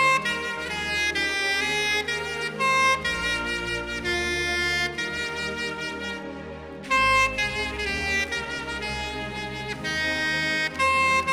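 Soprano saxophone playing a slow hymn melody in held notes over a soft low accompaniment, pausing briefly between phrases about six seconds in.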